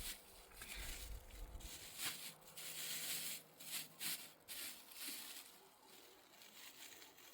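Faint, irregular rustling and scuffing noises, several short bursts in the first five seconds, then quieter.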